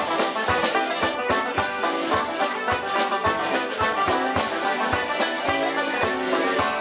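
Live traditional Irish instrumental music from a small group, with a steady beat.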